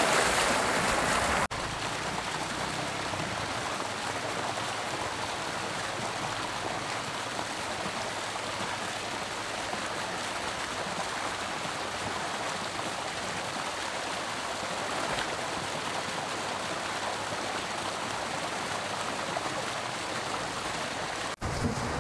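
A person splashes into a spring-fed swimming pool for about the first second and a half. After that comes the steady rushing of spring water gushing into the pool from its inlet.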